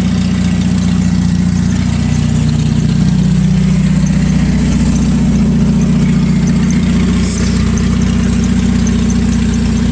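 Chevrolet S-10 pickup's engine idling steadily.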